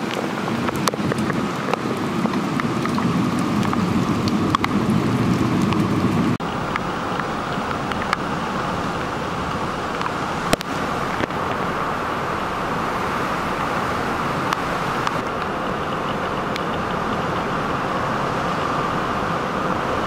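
Steady rain falling on a flooded street, a constant hiss with scattered sharp drop ticks. A low rumble underneath stops abruptly about six seconds in.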